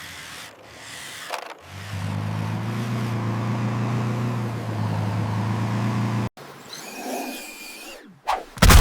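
Vehicle engine sound effect running at a steady low hum for a few seconds, then cutting off suddenly; a loud hit near the end.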